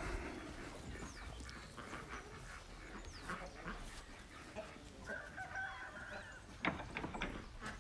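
Farmyard fowl calling on and off, with small birds chirping high; a longer call with a few stacked tones comes about five seconds in, and a couple of sharp knocks sound near the end.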